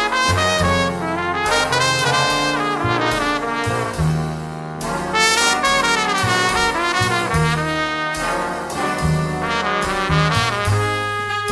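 Background jazz music played by a brass band, with trumpets and trombones carrying the melody over a moving bass line.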